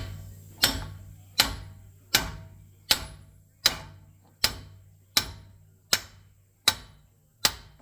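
About ten evenly paced hammer blows on steel, a little under one a second, each with a short metallic ring: a hammer driving the end of the front axle shaft to free it from the hub bearing's splines.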